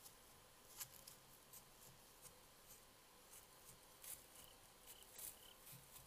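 Near silence: faint night-time outdoor ambience with a few soft scattered clicks and, near the end, a few faint short high chirps.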